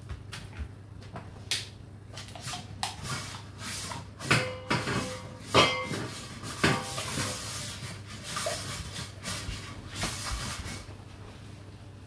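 Whirlpool dishwasher running a rinse: water spraying and splashing irregularly inside the tub, with sharp knocks and clinks, over the steady low hum of its pump. The splashing is heaviest in the middle and dies away near the end.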